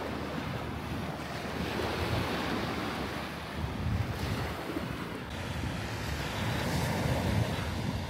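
Small waves breaking and washing up a sandy shore, with wind buffeting the microphone in uneven gusts.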